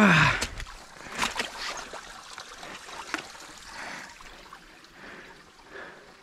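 A voice sliding down in pitch at the very start, then creek water trickling and gurgling at a beaver dam, with a few short knocks.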